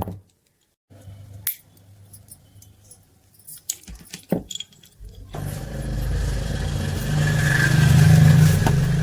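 Clicks and rattles of small metal parts being handled, then about five seconds in an electric drill's motor starts up and runs steadily, growing louder before it stops just after the end.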